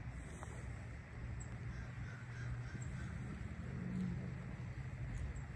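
Quiet outdoor background with a faint, steady low hum.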